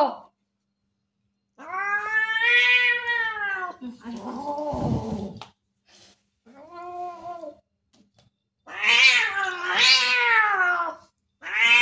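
Domestic cat giving a string of long, drawn-out yowls, about five, each rising and then falling in pitch, with short pauses between them.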